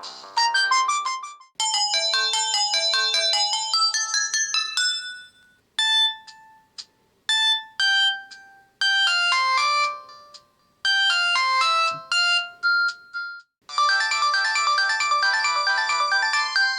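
Samsung E1170 mobile phone ringtones playing one after another: short, bright electronic melodies, each giving way to the next after a brief pause or an abrupt change every few seconds.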